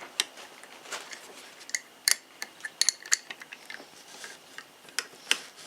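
Scattered sharp clicks and light clinks of metal and plastic as a cordless angle grinder is handled to loosen its disc nut with a spanner wrench.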